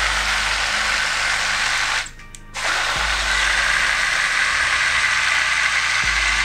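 BlendJet One cordless portable blender running, its motor and blades blending a fruit smoothie with a steady whine. It stops about two seconds in and starts again half a second later.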